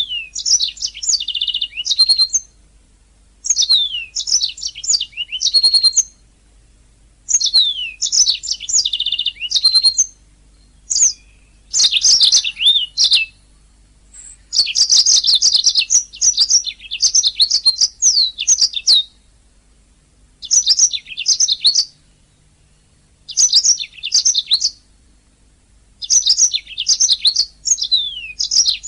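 Domestic canary singing: phrases of rapid high chirps, trills and rising and falling whistles, each a couple of seconds long, separated by short pauses.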